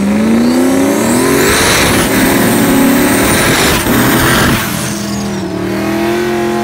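Mustang drag car doing a burnout: the engine revs up over the first couple of seconds over the noise of the spinning rear tyres, with a high whine riding above it. The engine then holds at steady high revs for the last second or two.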